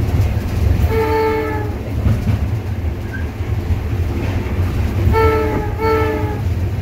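Locomotive air horn sounded from inside the cab, a chord of several tones: one blast about a second in, then two short blasts in quick succession near the end. Under it, the steady low rumble of the EMD GL18B's EMD 8-645 diesel engine.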